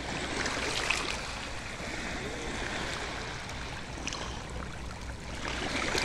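Shallow seawater rushing and trickling over a rocky reef flat through seaweed, swelling as the wash surges in about a second in and again near the end, with small splashes.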